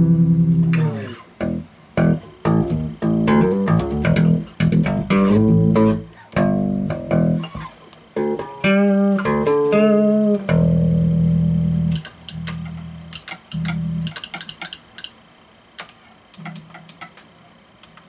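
2001 Music Man StingRay four-string electric bass, finger-plucked, playing an E major progression of single notes and chords. A few long low notes ring out about two-thirds of the way through, and the last few seconds hold only faint string clicks.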